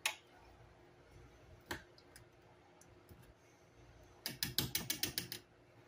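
Metal fork clinking against the inside of a glass pickle jar, a quick run of about ten taps near the end as pickle slices are fished out. Two single clicks come earlier, one at the start and one about two seconds in.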